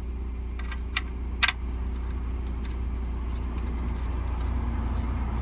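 A few sharp metallic clicks, two of them close together about a second in, as the oil drain plug and its washer are handled and threaded back into the oil pan, over a steady low mechanical hum.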